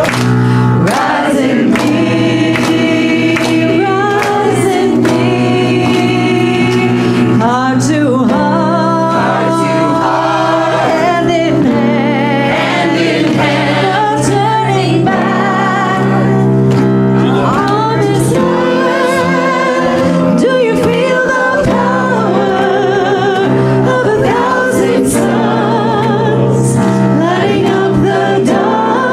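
Small church choir singing a gospel-style song, voices with vibrato over steady sustained keyboard chords.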